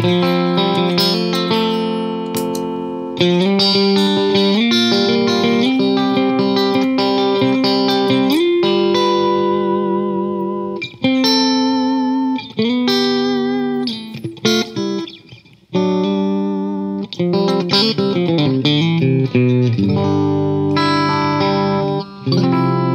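Fender Stratocaster electric guitar played clean through a Fairfield Circuitry Accountant compressor pedal set for light compression (ratio and pad at 1), strumming sustained chords and picking single-note phrases, with brief breaks in the playing about halfway through. The compressor is switched on partway through.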